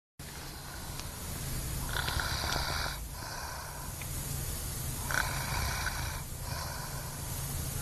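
Someone snoring heavily: a raspy snore on the breath in and another on the breath out, about one breath every three seconds, over a steady low hum.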